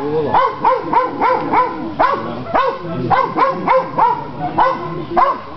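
A dog barking continuously in quick succession, about three to four short barks a second.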